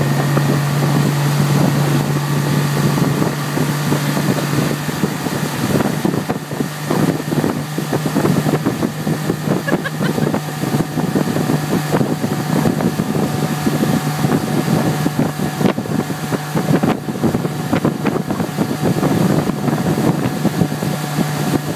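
Motorboat engine running steadily at towing speed, a constant low hum, with wind buffeting the microphone.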